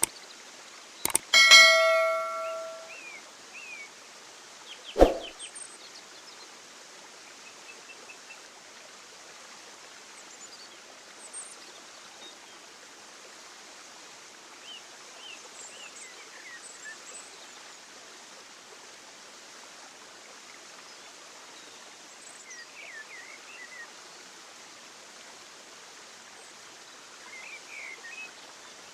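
A single bell strike about a second in that rings out for a second or so, then a sharp knock near five seconds. After that comes a steady outdoor hiss with faint, scattered bird chirps.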